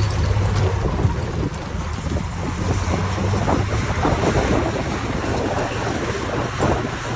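Heavy construction machine's diesel engine running steadily, with wind rushing on the microphone.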